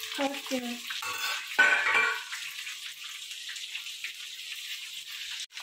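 Stuffed capsicum pieces sizzling in oil on a flat griddle pan, a steady hiss: the 'suy' sound that tells the cook the pieces have steamed through and are ready to be turned and fried. A brief louder noise comes about a second and a half in.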